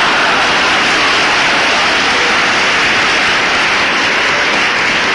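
A large audience applauding: a loud, steady wash of many hands clapping, with no single voice standing out.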